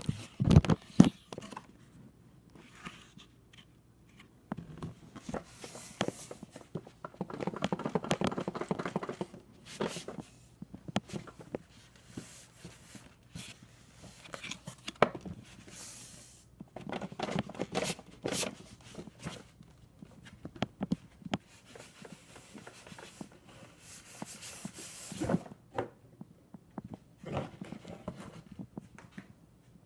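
Cardboard box and paper packing of a Lionel model train set being handled and pulled open: irregular rustling, scraping and tearing, with light knocks of cardboard.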